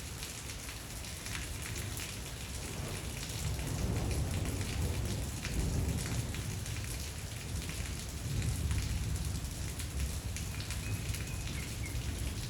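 Steady rain falling, with many separate drops ticking on a surface and a low rumble that swells twice, about a third and two thirds of the way through.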